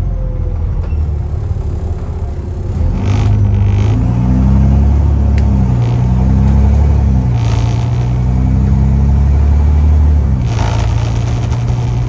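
Alexander Dennis Trident/Enviro400 bus's diesel engine pulling under load, heard from inside the upper deck. It grows louder about three seconds in, and its pitch climbs and drops back several times as the bus changes gear. The engine note is loud and blowing because the exhaust is blown.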